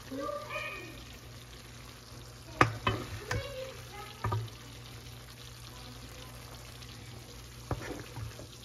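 Several light knocks and clinks of dishes and utensils being set down while a plate is arranged, scattered over a steady background hiss.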